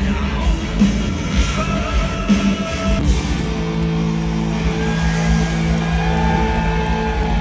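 Rock band playing live through a stadium sound system: drum hits with guitar in the first few seconds, then sustained held chords from about three seconds in.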